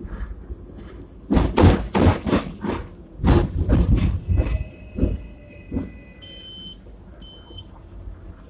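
Hong Kong double-decker tram running along its street track: runs of loud clattering knocks about a second in and again around three seconds, then two single knocks. Two short high beeps near the end sound over a low running rumble.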